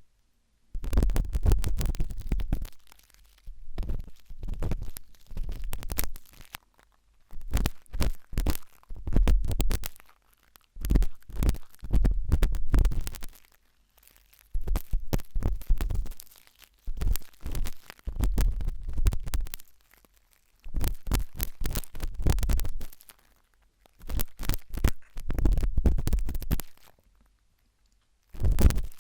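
Sharp toothpick scraping and scratching inside an ear, right against the microphone, in about a dozen bursts of one to two seconds with short pauses. Fine crackling clicks sit over a deep rumble from the contact.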